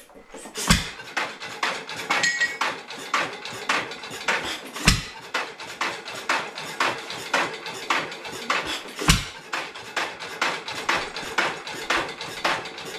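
A 1920s 2 hp Headless Witte single-cylinder hit-and-miss engine running: an even mechanical clatter about three times a second, with a heavy firing bang about every four seconds as it fires once and then coasts on its flywheels.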